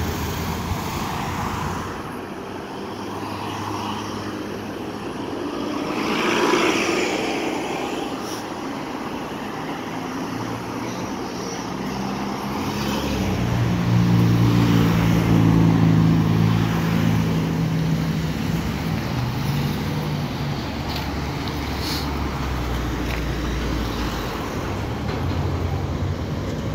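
Steady multi-lane road traffic, cars and trucks passing, one vehicle swelling past about six seconds in. In the middle a heavy diesel engine, a city bus, drones loudest for several seconds.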